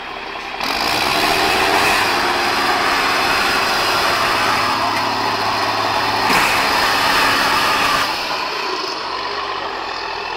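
Diesel engine of an MAN off-road trial truck revving hard under load as the truck climbs out of a deep hole. The engine note rises sharply about half a second in, holds, and eases off about eight seconds in.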